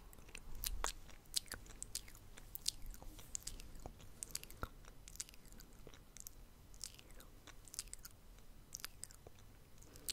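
Mouth sounds close to a microphone: quick, irregular clicks and smacks of the lips and tongue, a few each second.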